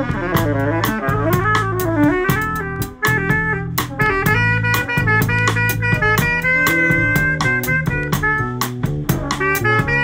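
Saxophone playing a jazz melody with a live drum kit keeping steady time on cymbals and drums, with band accompaniment underneath.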